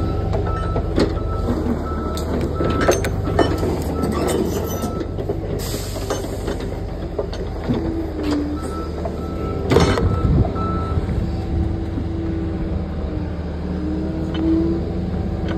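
Excavator's diesel engine running steadily, with a backup alarm beeping at an even pace that stops about five seconds in and sounds again for a couple of seconds near the middle. Scattered knocks and clanks, the loudest about ten seconds in.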